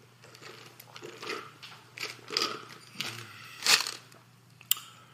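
Mouth chewing and crunching food in a run of irregular bites, with a sharp click near the end.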